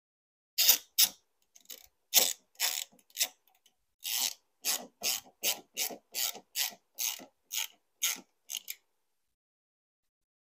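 Socket ratchet worked back and forth in short clicking strokes, about twenty of them. They are irregular at first, then come evenly at two to three a second, and stop a little over a second before the end. The ratchet is turning fasteners.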